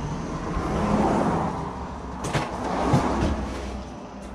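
Gilera Runner 180 scooter engine running at low throttle, the pitch rising and falling slightly as it is eased along, with a couple of sharp knocks about two and three seconds in.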